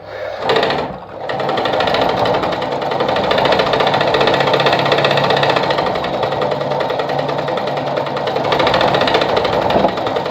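Sartina E-100 sewing machine sewing one of its built-in decorative stitches (pattern 3). After a brief start about half a second in, it runs at a steady speed.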